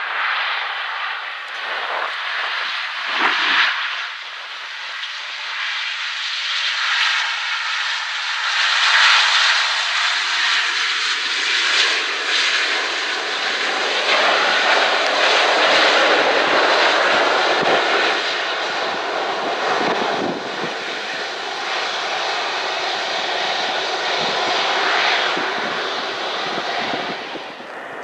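The Rolls-Royce Trent 700 jet engines of a Lufthansa Airbus A330-300 running loud as it rolls out along the runway just after touchdown, the noise building, then dropping off near the end.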